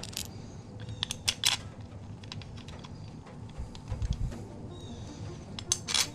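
Sharp metallic clicks and clinks of small engine parts being handled, in a cluster about a second in and again near the end, with a dull thump about four seconds in, over quiet background music.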